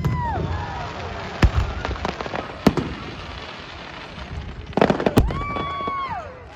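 Fireworks going off in several sharp bangs, about five. Near the end comes a held whistle-like tone that rises, holds and falls over about a second.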